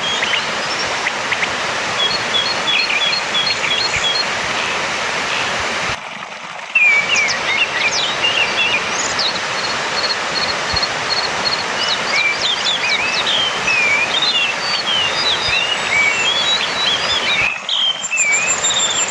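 Orange-headed thrush singing: first a row of short repeated notes, then varied warbling phrases, and a fast high trill near the end. Under it runs a steady rushing background noise. The sound drops out briefly about a third of the way in and again near the end.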